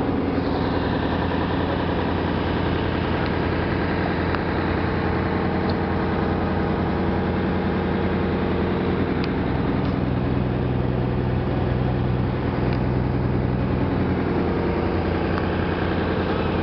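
A small passenger boat's engine running steadily, heard from on board as a low, even hum.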